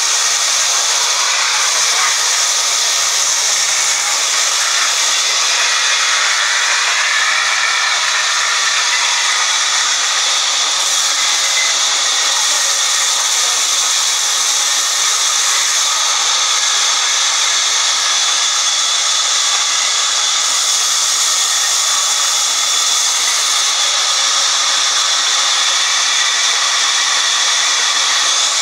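Sawmill band saw cutting lengthwise through a long mahogany log: a steady, loud, high-pitched rushing noise that holds even as the log feeds through the blade.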